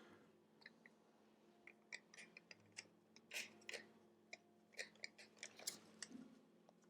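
Faint, irregular clicks and light taps of small parts, screws and tools being handled while the Mac Pro is taken apart, over a low steady hum.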